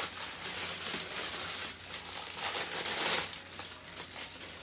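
Clear plastic packaging crinkling and rustling as it is handled and opened by hand, in uneven swells.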